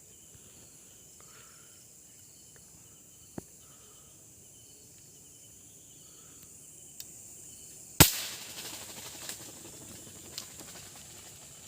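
A single sharp air-rifle shot about eight seconds in, trailing off in a brief rustle. A few faint clicks come before it, over a steady high chirring of night insects.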